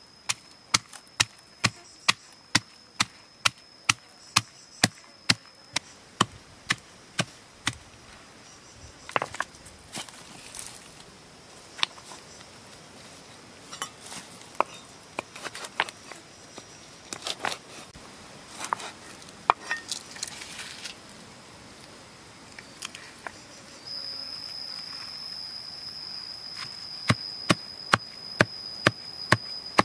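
A pestle pounds red chillies in a stone mortar with even, sharp strikes, about two and a half a second. Midway the pounding gives way to scattered, irregular knocks on a wooden chopping board, then resumes near the end. A steady, high insect trill runs underneath at the start and comes back louder for the last few seconds.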